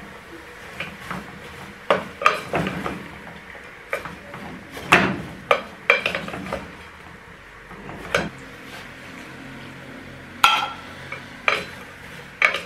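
A wooden spoon stirring onions in oil in an aluminium pot, knocking and scraping against the pot's sides in irregular strokes.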